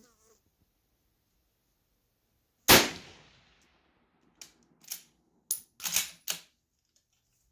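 A single shot from a 1915 Sestroretsk Mosin-Nagant rifle (7.62×54mmR), with a short echoing tail. About a second and a half later comes a quick run of sharp metallic clicks as the bolt is worked open, back and forward to chamber the next round.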